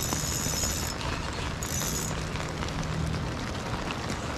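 Steady patter of rain on the lake and the kayak, with two short high-pitched whirs in the first two seconds.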